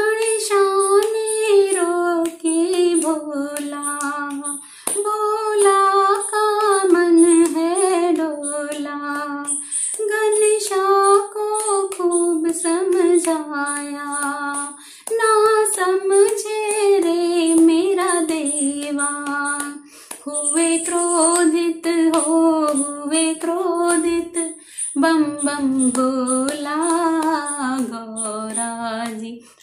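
A woman singing a Hindi devotional bhajan in long melodic phrases of about five seconds each, with a short breath between them. A steady, faint high ticking beat keeps time under the voice.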